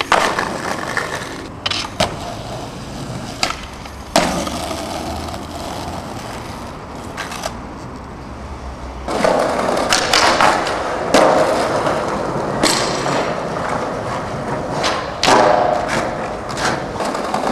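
Skateboard wheels rolling over concrete and tarmac, broken by sharp clacks and knocks of the board hitting the ground as tricks are popped and landed. The rolling gets louder about halfway through, with impacts coming more often.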